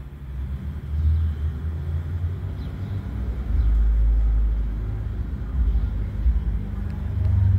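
Low, gusting rumble of wind buffeting the microphone, swelling and easing irregularly.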